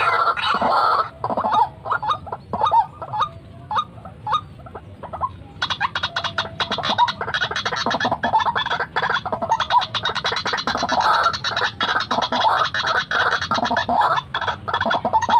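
White-breasted waterhen calling. Scattered calls come first, then from about five and a half seconds in a dense, rapid run of repeated notes.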